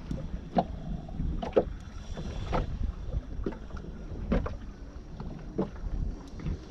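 Wind on the microphone and water slapping against the hull of a small boat, with irregular sharp knocks about once a second.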